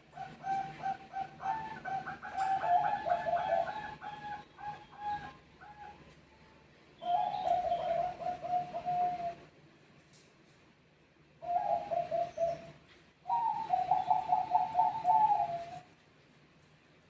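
Bangkok-type zebra doves (perkutut) cooing in four rolling phrases with short pauses between them, the birds answering one another.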